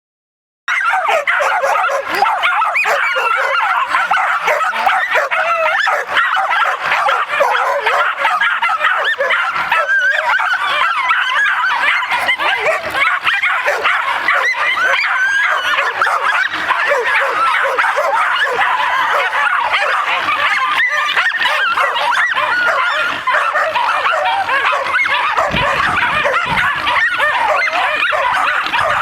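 Two jagdterriers barking and yelping without a break as they bay at a wild boar during hunting-dog training. The barking starts suddenly less than a second in and forms a dense, continuous din of high yaps.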